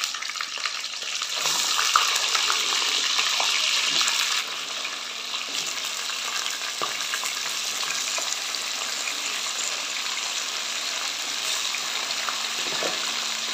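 Raw chicken pieces going into hot oil and sizzling, with a few light knocks as pieces land in the pot. The sizzle is loudest for the first four seconds or so, then eases a little into a steady frying hiss.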